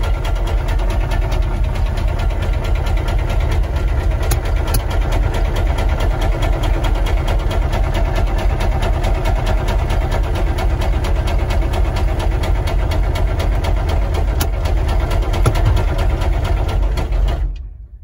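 Humvee's V8 diesel engine running with a fast, steady rod knock, heard from inside the cab; the engine has almost no oil pressure. The sound cuts off suddenly near the end.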